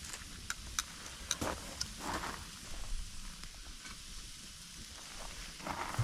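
Food cooking over a campfire: a steady sizzle with scattered sharp pops and crackles.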